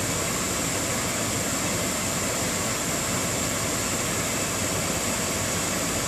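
Gas furnace's draft inducer motor running steadily, an even rush of fan noise with a thin high hiss, while the hot surface igniter heats up before ignition.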